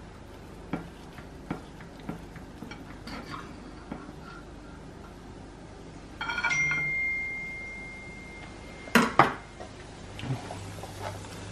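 Kitchen knife cutting a cooked chicken breast on a ceramic plate: a few light taps of the blade on the plate, then about six seconds in a scrape and a clear ringing tone that fades over about two seconds, and two sharp clacks of the knife near the end.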